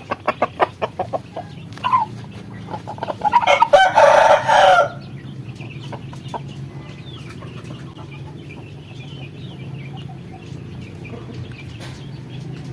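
Chickens: a quick run of clucks, then a rooster crowing loudly about three and a half seconds in, after which only faint chirps remain.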